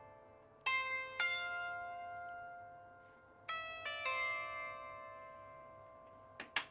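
Small wooden lyre harp plucked slowly: two notes about a second in, then three more at about three and a half to four seconds, each left to ring and fade as the closing notes of the tune. Two sharp clicks just before the end.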